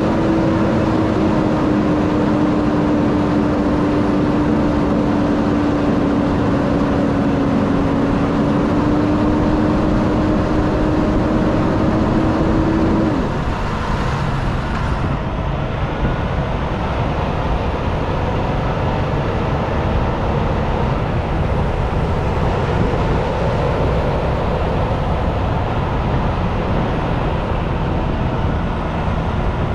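Peterbilt 579 semi truck's diesel engine running as the rig moves slowly, heard from outside the cab with road noise. A steady engine tone drops away suddenly about 13 seconds in, leaving the lower running sound.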